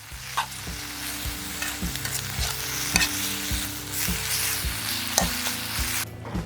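Corn and minced pork sizzling as they are stir-fried in a hot pan, with a few sharper scrapes from the stirring. The sizzle stops abruptly about six seconds in. Background music with a steady beat plays underneath.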